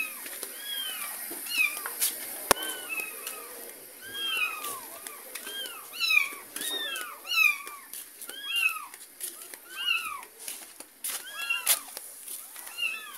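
A kitten mewing over and over: short, high mews that rise and fall, about one or two a second, with a few clicks and one sharp knock in between.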